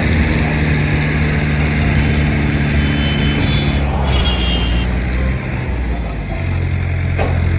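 Heavy diesel engine idling steadily. About four seconds in, a car passes close by with a brief rush of tyre and wind noise.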